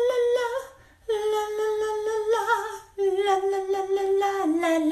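A voice humming long, held high notes in three phrases with short breaks between them, the pitch stepping down near the end.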